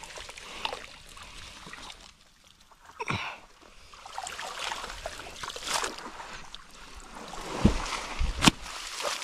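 Water splashing and sloshing irregularly as someone moves about in deep water, with two sharp, louder hits near the end.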